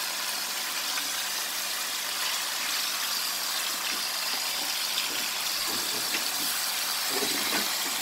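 Pork chops sizzling steadily in hot oil in a frying pan as they are par-cooked, with a few faint clicks of a metal fork against the pan as they are turned.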